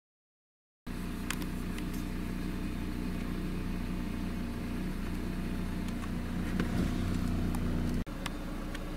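Silence for about the first second, then a car's engine running steadily at low speed, heard from inside the cabin while driving along a dirt forest track, with a few light clicks and knocks.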